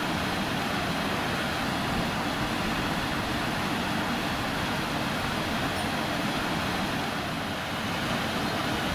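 Lufthansa Airbus A380's four Rolls-Royce Trent 900 jet engines running, a steady rushing noise heard from a distance during its departure on the runway.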